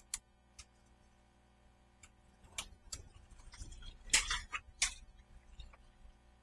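Scattered sharp clicks, then a short burst of clicking and clatter about halfway through: tools and small parts being handled during hands-on work on the car.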